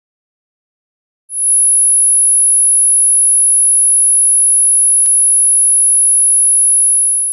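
A single very high-pitched, steady electronic pure tone, starting about a second in and held loud and unchanging for about six seconds, with a faint tick about five seconds in.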